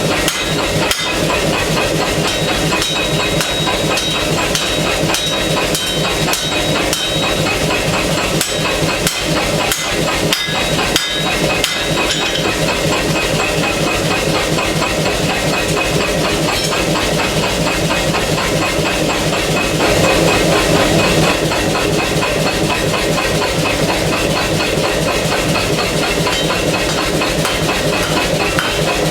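Air hammer pounding hot steel with rapid, steady, evenly spaced blows as a knife blade is drawn out, over a constant hiss.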